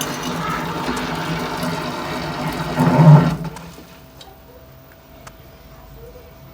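LG inverter front-load washing machine running with a loud, rough noise over a low hum: the abnormal sound of the machine's fault. The noise swells and then cuts off suddenly about halfway through, leaving a faint steady tone and a few light ticks.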